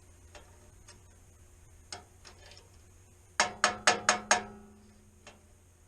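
Furnace control-board relay chattering: five sharp clicks in about a second, a little over three seconds in, with a low hum beneath them. The relay, which the technician thinks is the inducer motor relay and suspects is bad, is not pulling in on the low voltage (about 70 V).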